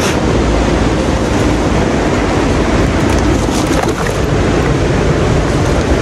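Steady, even rushing of falling water from a monsoon waterfall and its stream.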